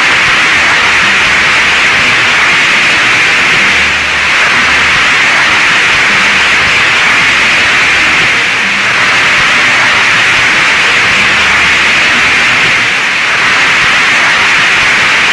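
A large audience applauding: loud, sustained clapping that keeps going without a break, easing slightly a few times.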